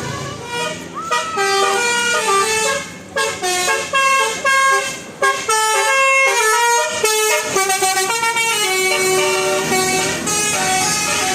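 Bus telolet horn playing a quick melody, its notes stepping up and down several times a second, starting about a second in.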